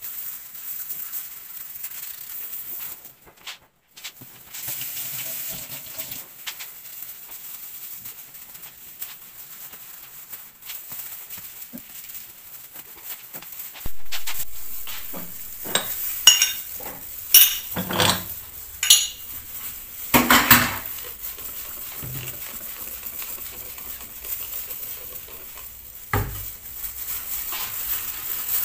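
Kitchen sounds: a steady sizzle of frying, with a run of clinking and clattering of dishes and utensils about halfway through.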